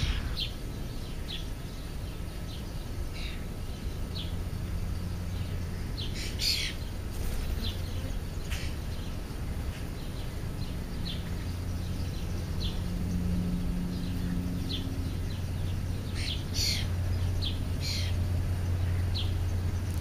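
Birds chirping: many short, high calls scattered irregularly, each sliding down in pitch, with a few louder calls about a third of the way in and again near the end. A low steady hum runs underneath.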